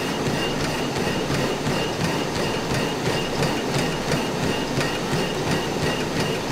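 Three runners' feet pounding on treadmill belts in a fast, steady rhythm, over the running noise of the treadmills.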